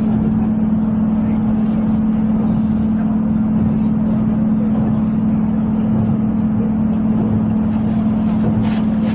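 Running noise of a 253 series electric express train at about 80 km/h, heard inside the carriage: a steady rumble with a constant low hum.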